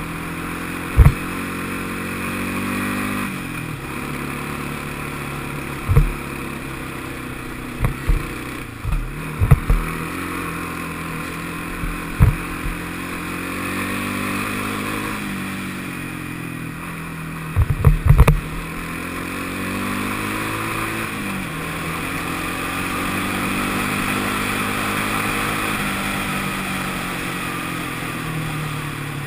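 Honda FourTrax ATV's single-cylinder four-stroke engine running under way, its pitch rising and falling several times as the throttle changes. Sharp loud knocks come every few seconds, with a cluster about two-thirds of the way in.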